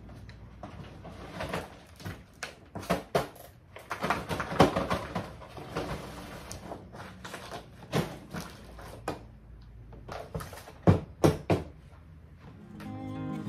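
Paper cement bags being shaken out and emptied onto a heap of crushed stone: rustling of heavy paper, cement powder pouring, and irregular knocks and thumps, with two sharp knocks near the end. Acoustic guitar music fades in at the very end.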